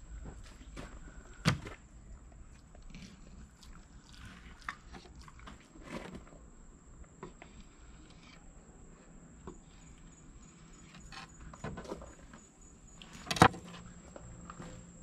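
A fillet knife and hands working yellow jack fillets on a plastic fish-cleaning table: scattered soft taps and scrapes, with a sharp knock about a second and a half in. A louder knock near the end as the knife is put down on the table.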